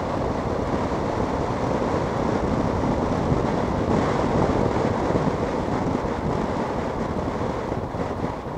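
Steady wind rush on the microphone of a moving motorcycle, with the bike's engine and road noise underneath.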